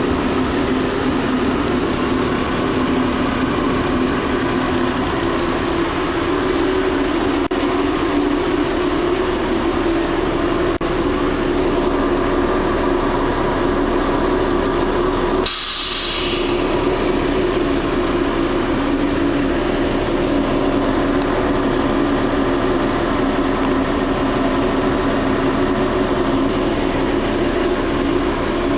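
Train heard from inside the carriage as it comes into a station and stands: a steady low running hum, then about halfway through a sudden hiss of released air that fades within a second or two.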